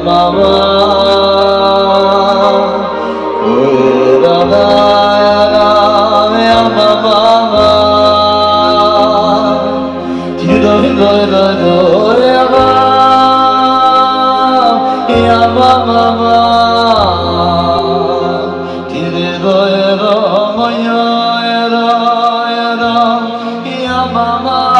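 A man singing Jewish wedding music into a microphone with electronic keyboard accompaniment. He holds long notes and slides between them over a bass line that steps from note to note.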